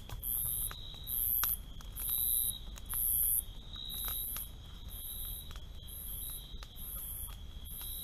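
Night insects chirping in a steady rhythm: a very high trill pulsing about once a second over a steady high whine. The campfire's wood pops and crackles now and then.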